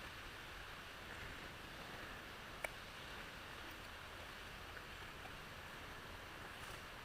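A steady faint hiss with one sharp, small click about two and a half seconds in, from hand work with small metal parts and tiny snap ring pliers.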